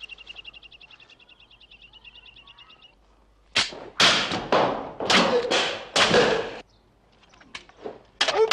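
Japanese sword practice. A high, rapidly pulsing ringing tone fades away over the first three seconds, then about seven loud, sudden rushing sounds of sword swings and shouts come in quick succession. One more short shout comes near the end.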